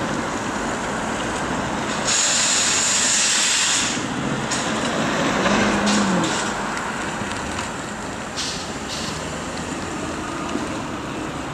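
City street traffic as cars drive past through an intersection. About two seconds in there is a loud hiss lasting nearly two seconds that starts and stops abruptly, and a few short clacks follow later.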